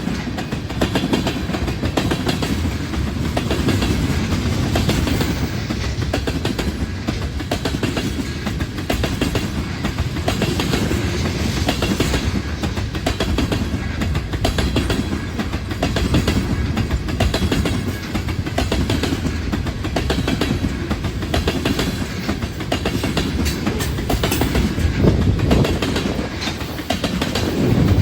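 A train's cars rolling past on the track, with a steady rumble and a continuous clickety-clack of wheels over rail joints.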